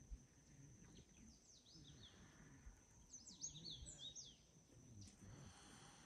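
Quiet outdoor ambience: a small bird chirping in two quick runs of short, sliding high notes, over a faint steady high-pitched tone.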